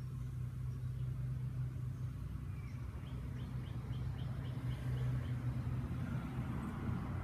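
Outdoor background: a steady low hum, with a quick run of about nine short high chirps from a bird around the middle, and road-traffic noise growing near the end.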